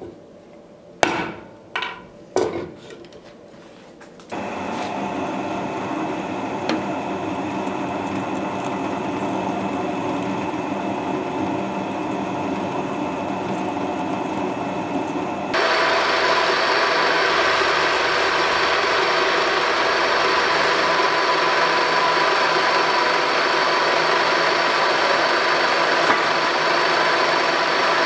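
Three sharp hammer taps on a centre punch marking a steel pommel blank, then a drill press running steadily as it bores into the steel. About 15 seconds in the cutting sound turns suddenly louder and higher as a larger cutter works the hole.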